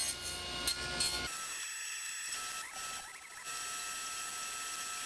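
Table saw ripping a thin strip from a wood board. The heavier cutting sound stops abruptly about a second in, and the saw keeps running with a steady high tone.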